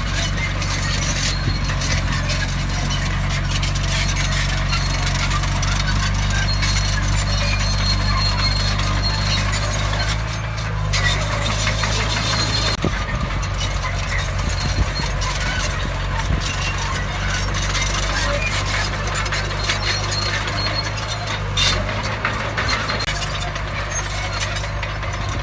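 Heavy earthmoving machinery at work: a diesel engine running at a steady drone, with continuous metallic clanking and clatter and a thin high squeal that comes and goes.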